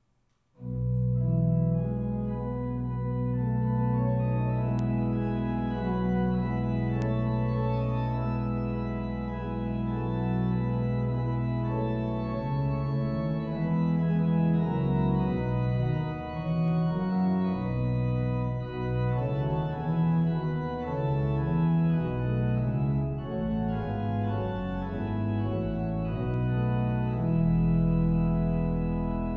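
Organ playing slow sustained chords over a held low bass note. The bass drops out about twelve seconds in while the upper voices move more, and returns near the end.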